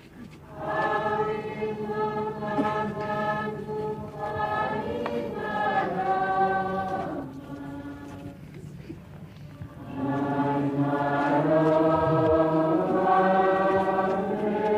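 Many voices singing a hymn together in long held notes. The singing fades about seven seconds in and swells back up about ten seconds in.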